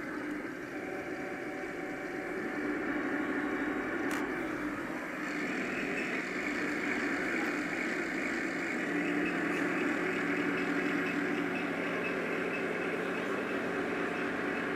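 1/16-scale radio-controlled model tanks running: a steady mechanical hum with a few held tones, growing a little louder about six seconds in.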